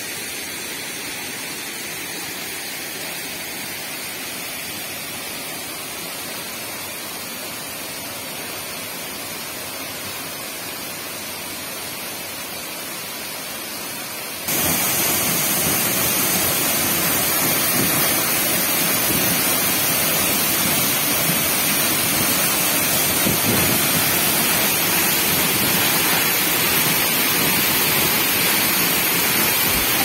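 Steady hiss of rushing water, softer and thinner for the first half. About halfway in it cuts to the louder, full rush of a waterfall pouring down a rock face onto boulders.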